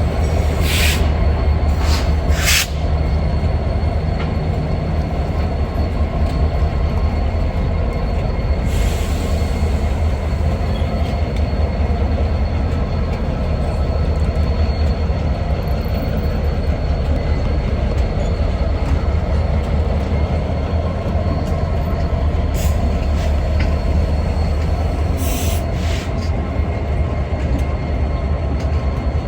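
Train rolling along the track with a steady heavy low rumble, and several short bursts of high wheel squeal.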